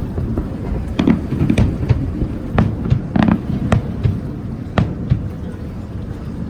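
Aerial fireworks shells bursting across the water, with about eight sharp irregular bangs and pops over a steady low rumble.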